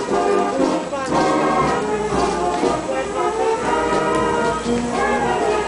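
Middle school marching band playing, with trombones and trumpets carrying the tune in steady held notes.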